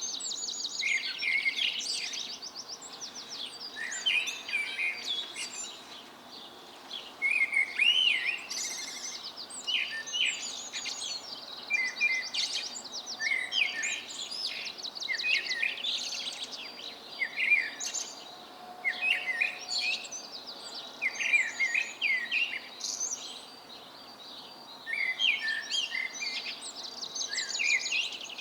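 Songbirds singing at dawn: short, bright phrases of rapid trills and twitters, one after another with short pauses between them.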